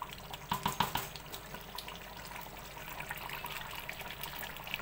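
Chicken curry gravy bubbling and sizzling in a pot on the stove, with a steady hiss and many small pops, busiest about half a second to a second in.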